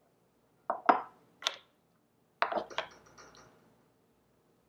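Light knocks and clinks of miniature kitchenware, a small ceramic bowl and a tiny wooden chopping board, being handled and set down on a wooden table: three single knocks, then a quick cluster of clicks about halfway through.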